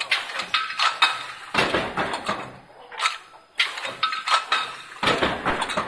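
Mechanical power press with a 2D transfer system running: repeated sharp metallic clanks and clinks as the press strokes and the transfer moves small stamped metal cups between die stations, in a cycle that repeats every couple of seconds.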